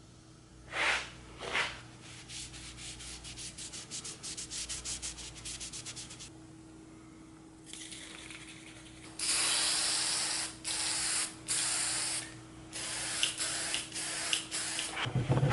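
Aerosol spray can being shaken, its mixing ball rattling in quick even clicks, then a series of spray hisses, the first about a second long and several shorter ones after.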